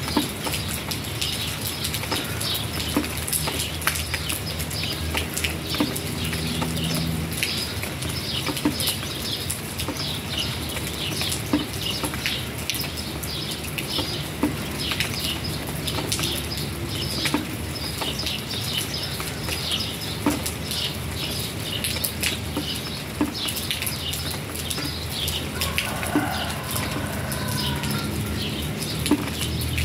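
Rain falling onto a wet concrete patio and potted plants: irregular drops and drips tapping, over a steady low hum.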